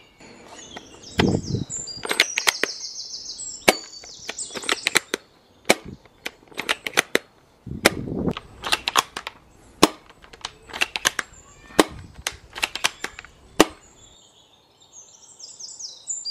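Cheap plastic spring-powered airsoft bolt-action sniper rifle being cycled and fired again and again: a long run of sharp plastic clacks and snaps, some in quick clusters, with two longer rasps, about a second in and about eight seconds in.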